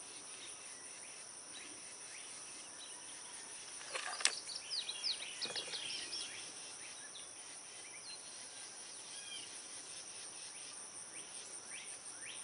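Insects chirring steadily in a high, even drone. About four seconds in comes a sharp click, followed for a couple of seconds by a scatter of small clicks and short chirps.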